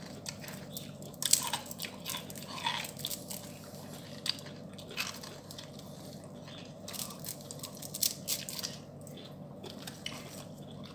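People biting and chewing crunchy food, with irregular crisp crunches scattered through, a few louder bites standing out.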